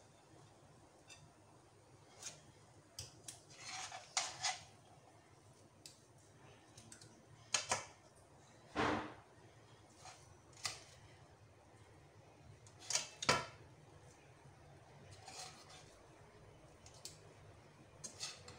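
Spatula and serving utensils knocking and scraping against a wok and a serving plate while prawn masala is stirred and served. The clinks and scrapes come singly or in short clusters, a second or more apart, with quiet gaps between them.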